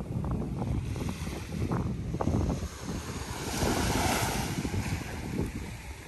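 Small waves washing onto a sandy beach, with wind buffeting the microphone in gusty low rumbles; a wash of surf swells up a little past the middle.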